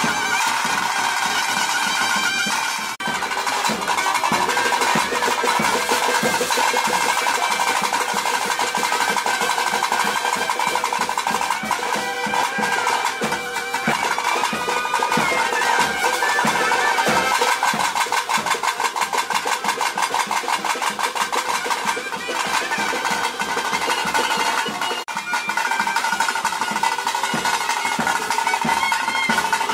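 Bhoota kola ritual band: fast, dense drumming on thaase drums under a double-reed pipe of the nagaswara type holding a high steady note. There are brief breaks about 3 seconds and 25 seconds in.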